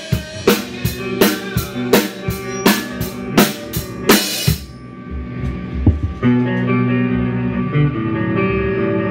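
Mapex drum kit played hard with a cymbal on each beat, about three hits a second, over guitar; the drums stop about four and a half seconds in, and from about six seconds guitar notes are held and sustained.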